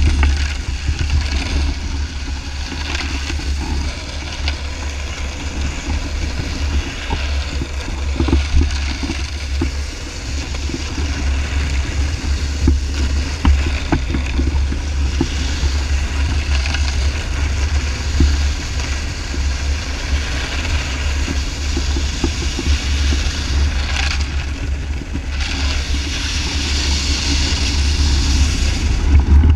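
Wind buffeting an action camera's microphone in a steady low rumble, over the hiss and scrape of a snowboard running across ice. The hiss grows stronger near the end.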